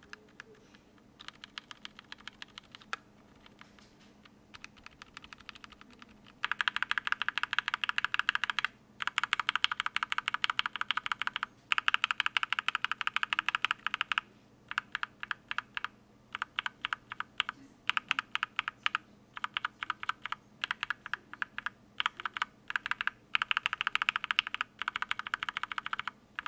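Mechanical keyboard with lubed and filmed linear switches (H1, Cherry-top H1 and Mauve) in a brass-plate KBD67mkii with GMK keycaps: single keys pressed one by one for about six seconds, then fast runs of typing in bursts.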